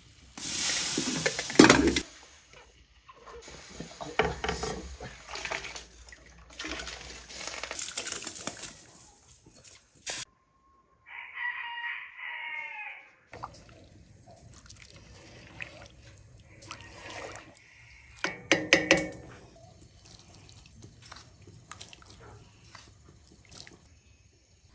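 Water pouring and splashing as rice is rinsed in a pot, with a rooster crowing once, about eleven seconds in, for around two seconds. Another short spell of splashing comes near 18–19 s.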